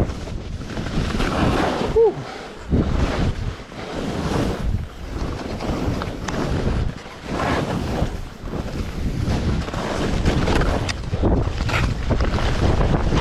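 Wind buffeting the camera microphone in gusts, a loud rumbling rush that swells and dips. About two seconds in, a brief whistle-like tone bends down in pitch.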